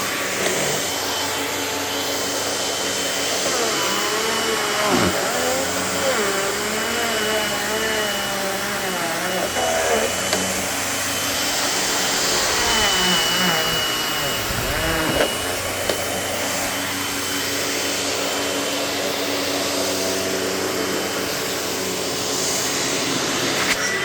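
Panasonic MC-UG583 upright vacuum cleaner running steadily while it picks up debris from a rug, with a wavering pitch between about 4 and 15 seconds in.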